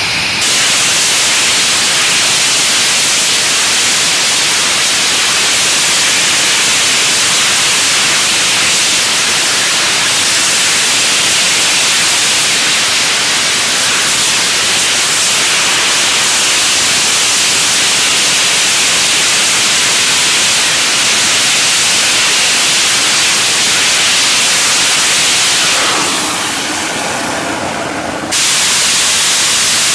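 H2O2/thermoplastic hybrid rocket engine firing, a loud, steady rushing hiss. About 26 s in it throttles down, the noise dropping and dulling with a few tones showing, then it abruptly returns to full loudness about two seconds later.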